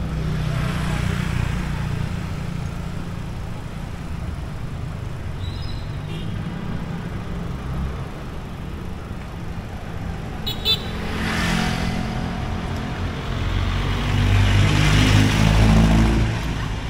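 Street traffic: motor vehicles running and passing with a steady engine rumble. One passes close about eleven seconds in, and a louder one passes near the end.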